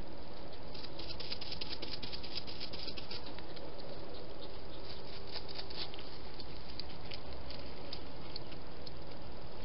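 Wild hedgehogs close to the microphone making quick runs of small clicks and crackles, thickest in the first few seconds and again about five seconds in, then sparser.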